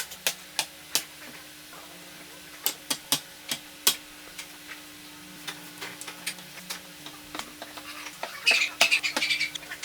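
Hand work on wooden pieces: a series of sharp, irregular taps and clicks, then a short burst of scraping about eight and a half seconds in, over a faint steady hum.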